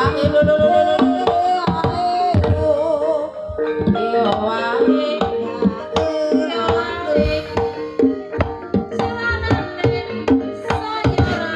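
Live jaranan accompaniment: fast hand-drum strokes from the kendang with gamelan tones ringing under them, and a melody that wavers in pitch above.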